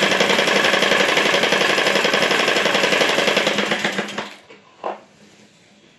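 Sewing machine running fast, stitching a lace border onto saree fabric, then slowing and stopping about four seconds in. A single sharp knock follows shortly after.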